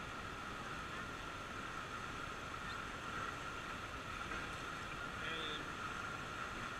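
Steady rush of river rapids, with a faint distant voice about five seconds in.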